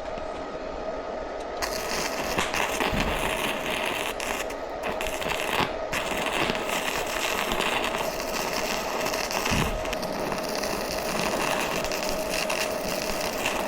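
Stick arc welding with an NSY arc welder: the arc is struck about two seconds in and crackles steadily, with one brief break a few seconds later, over a steady hum from the machine.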